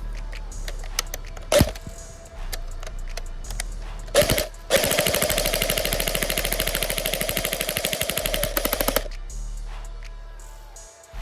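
Airsoft electric gun firing: a single shot, a second shot about two and a half seconds later, then a rapid full-auto burst lasting about four seconds that stops abruptly.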